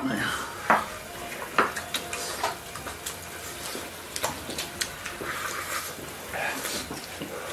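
People eating with chopsticks: scattered light clicks of chopsticks against ceramic rice bowls, with chewing.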